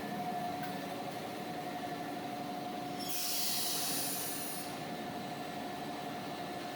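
Automatic maxi-roll paper-towel log cutting machine running with a steady, even hum. About three seconds in, a loud hiss lasts a second and a half.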